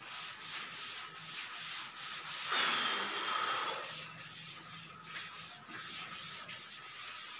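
Cloth duster rubbing chalk off a chalkboard in repeated wiping strokes, louder for a stretch about two and a half to four seconds in.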